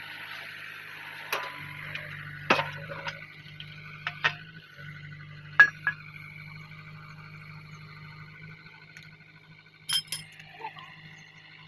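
Sharp metal clinks and knocks of steel bucket pins and fittings being handled during a backhoe bucket change, eight or so separate strikes with the loudest a little past halfway and a quick double clink near the end, over a low steady hum.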